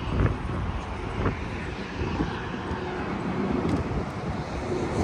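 Gusty wind on the microphone mixed with road traffic noise, a steady low rumble that swells and eases.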